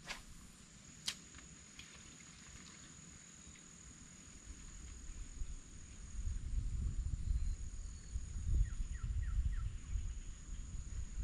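Insects buzzing in one steady high tone, with two sharp clicks in the first second or so and a low rumble building up from about halfway.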